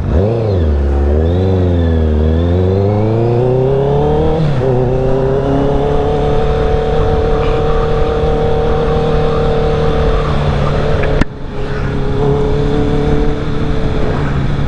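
Honda CB650R's inline-four engine running through an aftermarket R11 full exhaust while riding. The engine pitch rises and falls several times over the first four seconds or so, then holds steady. There is a brief break about eleven seconds in.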